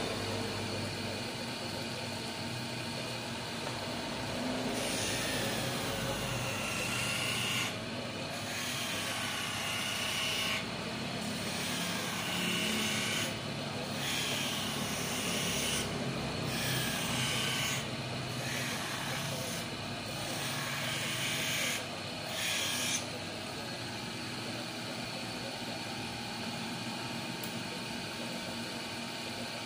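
Bench hand lens edger's grinding wheel running steadily, with an eyeglass lens pressed against it in about eight short passes of one to three seconds each. Each pass is a grinding noise whose pitch sweeps up and down. The grinding stops about 23 seconds in and the wheel runs on.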